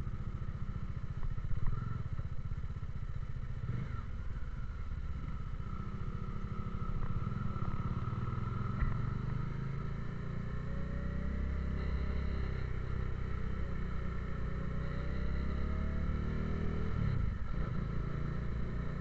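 Motorcycle engine running while riding, its pitch rising gradually about halfway through and dropping again near the end. A short knock about one and a half seconds in.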